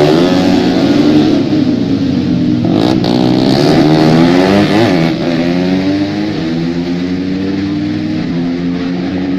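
Several tuned racing motorcycle engines revving hard at once, their notes climbing and dropping again and again through gear changes. The sound eases somewhat after about six seconds.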